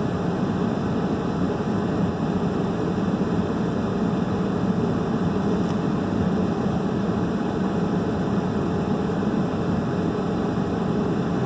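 Steady rushing of a heater's blower fan running on high.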